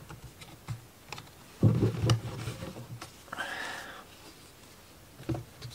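Thin laser-cut plywood model-kit sheets being handled on a table: light clicks and taps, with two louder scuffing shuffles as the sheets are shifted and one is lifted.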